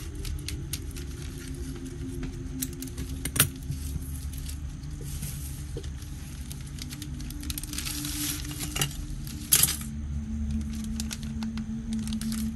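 Clear plastic parts bags crinkling and rustling as small model parts are handled and taken out, with scattered light clicks and taps of plastic parts. There is a louder crinkle about eight seconds in and a sharp click shortly after.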